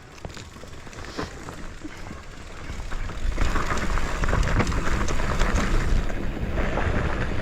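Mountain bike riding down a rough dirt trail: tyres crunching over ground and rocks with scattered rattles and clicks, and wind rumbling on the microphone, getting louder about three seconds in as speed picks up.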